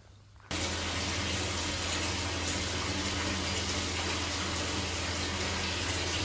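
Water running steadily into a bathtub, with a low steady hum underneath, starting suddenly about half a second in.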